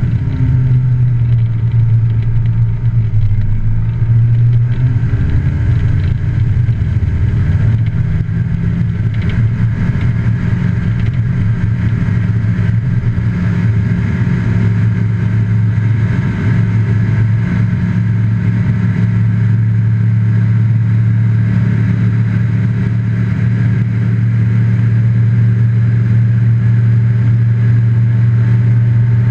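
Just Aircraft Highlander's engine and propeller running at high power, a loud steady drone heard inside the cockpit. The pitch wavers and there is rough low rumbling in the first few seconds while rolling on the grass strip, then the drone holds even in flight.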